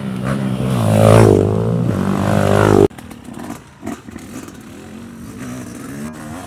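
Dirt bike engine revving loudly as the bike rides up close and past, its pitch sweeping, loudest about a second in. It cuts off suddenly just before three seconds in, giving way to a quieter dirt bike engine revving unevenly on a steep climb.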